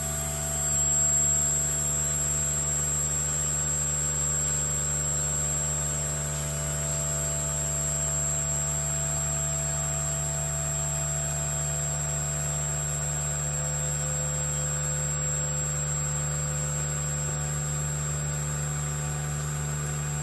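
Vacuum pump running steadily as it evacuates a sigma mixer's sealed tank, a constant hum with a thin high tone above it; the mixer itself is stopped.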